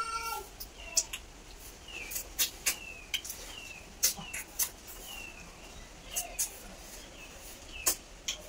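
Irregular sharp clicks and sucking pops from eating boiled freshwater snails (ghongha) by hand off a steel plate, as the snails are sucked from their shells. A bird chirps short falling notes repeatedly in the background.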